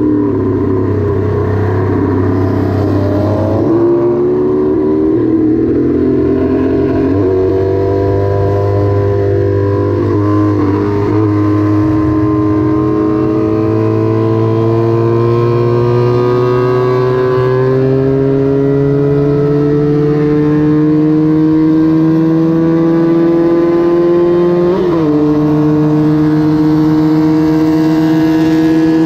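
Small vintage racing motorcycle engine running hard at high revs, its pitch climbing slowly and steadily, with a brief drop and recovery near the end like a gear change. At the start several bikes' engines overlap before one engine dominates.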